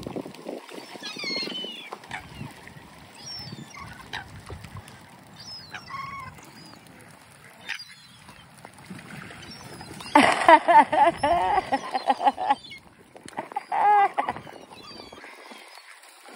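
Ducks and swans calling at a feeding spot: scattered quacks and honking calls, with a loud run of calls lasting about two and a half seconds from about ten seconds in and another short loud call near fourteen seconds.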